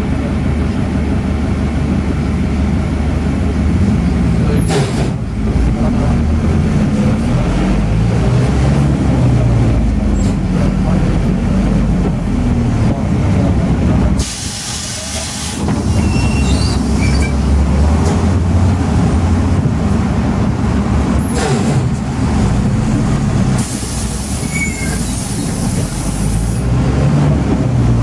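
Inside a route minibus in city traffic: the engine runs and its pitch rises and falls as the bus pulls away and changes speed. Bursts of hiss come about halfway through and again near the end.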